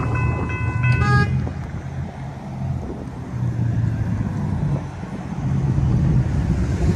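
Railroad grade-crossing warning bell ringing in repeated tones, stopping about a second in as the gates go up after the train has passed. The low rumble of car engines and road traffic goes on underneath.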